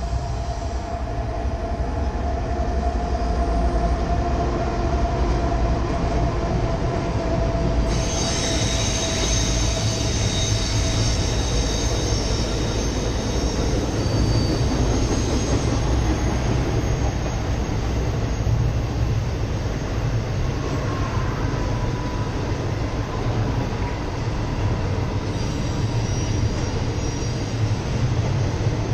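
A freight train passing, led by two GE ES44C4 diesel-electric locomotives: a deep, steady rumble with a slowly falling engine tone at first, then intermodal cars rolling by. A high wheel squeal starts about eight seconds in and comes again near the end.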